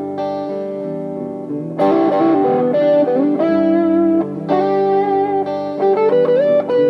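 Fernandes FR-75-3S electric guitar played fairly clean: a chord rings, then a chord is struck hard about two seconds in, followed by single-note melody lines with string bends and slides.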